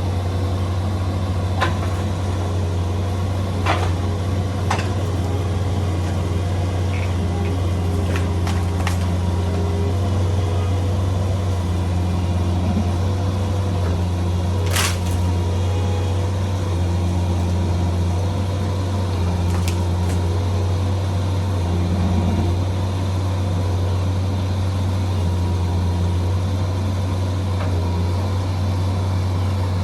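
Bobcat 341D mini excavator's diesel engine running steadily with a low drone and hum, broken by a few sharp knocks, the loudest about halfway through.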